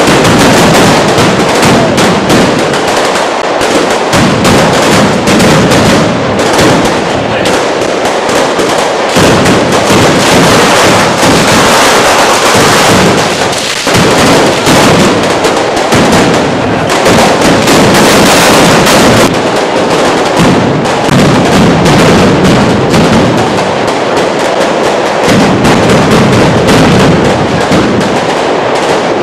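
Strings of firecrackers going off in a dense, continuous barrage of rapid bangs, loud and unbroken.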